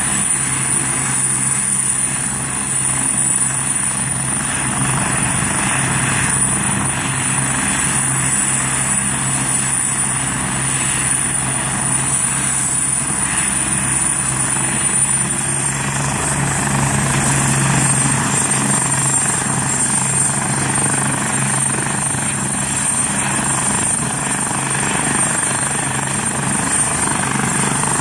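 Agusta A109K2 helicopter running on the ground ahead of takeoff: its twin turboshaft engines give a steady high whine over the low drone of the rotor. The whine drops slightly in pitch just past halfway.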